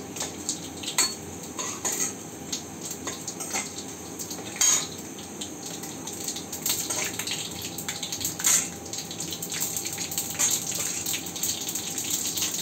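Tempering spices (mustard seeds, toor dal, fenugreek) frying in gingelly oil in a kadai: irregular sharp pops and clicks over a steady sizzle as the mustard seeds splutter, with a metal spoon clinking and scraping against the pan as it is stirred.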